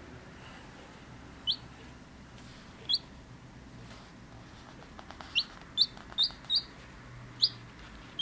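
Two-day-old chicken chick peeping: short, sharply rising peeps, two spaced a second and a half apart, then about six more in quicker succession from about five seconds in.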